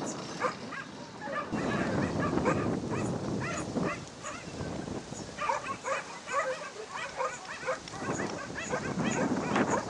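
Dogs yipping and whining, short high calls repeated over and over. A rushing noise runs beneath them for a couple of seconds near the start.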